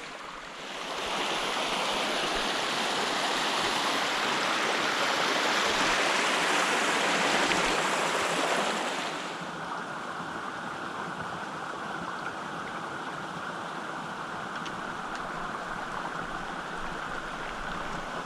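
Small mountain creek running over rocks, a steady rush of water. It is louder and brighter for the first nine seconds or so, then abruptly quieter and duller for the rest.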